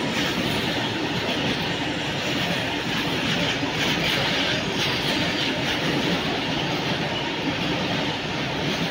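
Goods train of covered wagons running through the station at speed behind a WAG-9 electric locomotive: steady, loud noise of steel wheels running over the rails, with a light rhythmic clatter.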